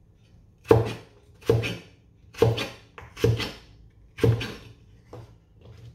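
A cleaver chopping a peeled raw potato into fry-sized sticks on a wooden cutting board: five solid chops a little under a second apart, then a couple of lighter taps near the end.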